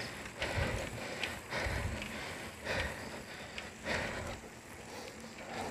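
A cyclist panting, about one breath a second, catching his breath after a steep uphill climb.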